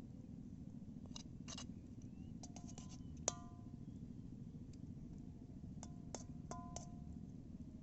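Irregular light clinks and ticks, a few of them ringing briefly, the sharpest about three seconds in, over a steady low rumble.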